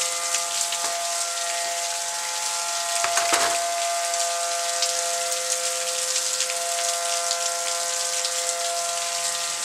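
Tornado warning siren sounding a steady chord of tones, over a dense hiss of rain. The siren is malfunctioning, set off by a lightning strike with no warning issued. A brief louder rush of noise comes about three seconds in.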